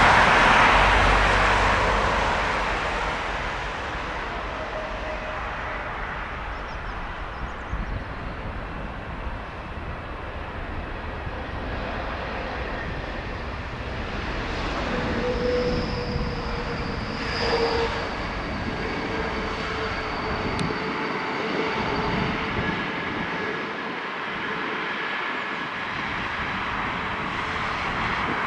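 Airbus A321neo jet engines as the airliner lands: loud jet noise as it passes just before touchdown, fading within a few seconds to a steady rumble, with a faint engine whine during the landing roll.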